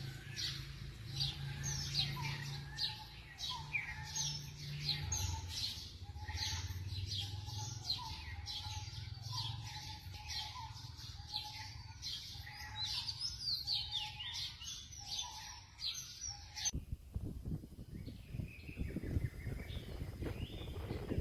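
Many birds chirping, with dense overlapping short calls. About 17 seconds in the birdsong cuts off abruptly to a fainter, rougher background.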